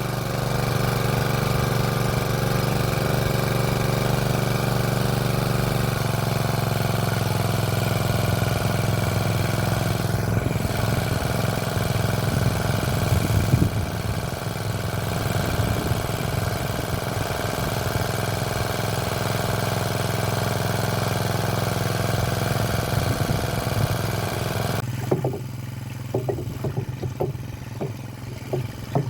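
Small combustion engine of a motor-driven irrigation water pump running steadily just after starting, now turning freely with its loose bolt tightened. About 25 seconds in the sound drops to a quieter level, with irregular knocks.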